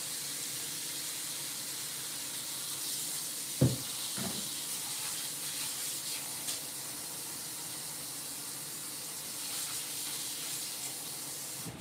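Kitchen sink faucet running a steady stream of cold water into the sink to fill a bowl of leafy greens for soaking, with two short knocks about four seconds in. The water shuts off suddenly at the very end.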